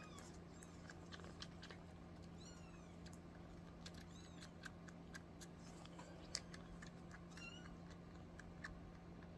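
Kittens mewing faintly: several short, high-pitched mews spread through the stretch, with scattered small clicks among them.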